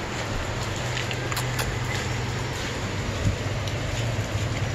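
Steady background noise with a constant low hum and a few faint clicks.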